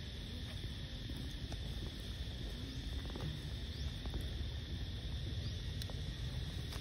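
Forest background: a steady high insect drone over a low rumble, with a few faint clicks and short chirps.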